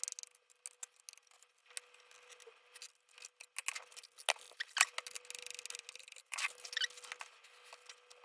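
Small screwdriver turning screws out of the underside of a ThinkPad T520 laptop: scattered sharp clicks and short scratchy squeaks of metal tool on screw heads and plastic.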